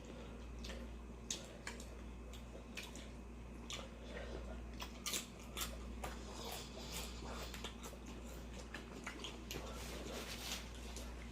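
People chewing food close to the microphone: a run of small, irregular crunches and mouth clicks over a steady low hum.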